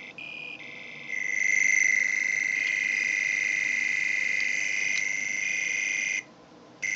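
Arduino-driven sound effect from a sonic screwdriver prop's built-in speaker: a high, rapidly pulsing electronic tone. It is muffled while the body is closed and gets much louder about a second in as the slide is pulled out. It cuts off near the end and briefly sounds again.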